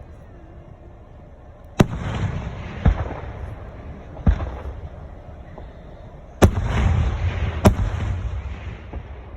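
Aerial fireworks shells bursting: five sharp booms in quick succession, two of them followed by a long rolling rumble and crackle.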